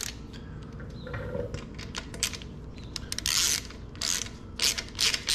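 Hand socket ratchet clicking as it tightens nuts onto the motor-mount bolts: only a few faint ticks at first, a burst of clicking about three seconds in, then regular back-strokes of clicking, about two a second, near the end.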